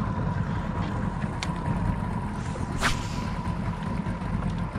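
Steady low hum of a pontoon boat's outboard motor running on the lake, with a sharp tap just over halfway through.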